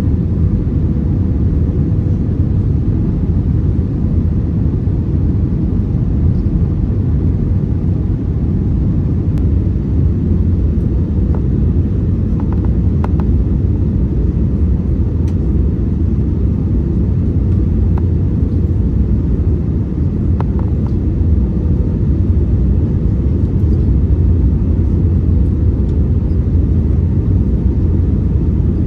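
Steady, loud cabin rumble of an Airbus A321neo airliner, with a faint steady hum over it and a few light clicks.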